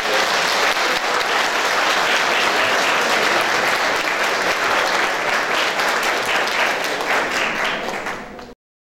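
Audience applauding: a dense, steady clatter of many hands clapping, which tapers slightly and then cuts off suddenly near the end.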